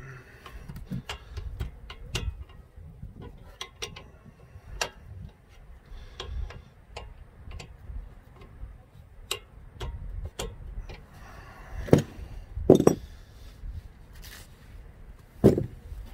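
Scattered metallic clicks and clinks of a wrench working the nut on a front sway bar link, with a few louder knocks in the last few seconds.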